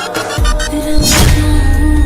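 Music from an Indian film-style pop song. A heavy bass comes in about half a second in, and a swoosh sweeps through about a second in, after which the deep beat carries on under a repeating tone.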